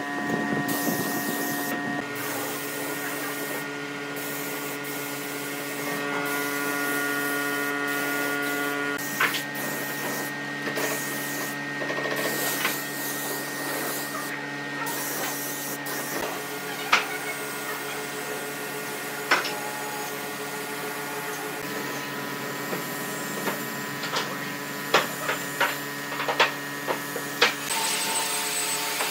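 Compressed-air spray gun spraying finish onto a wooden table: a steady hiss over a steady machine hum, with scattered sharp clicks that come several in quick succession near the end.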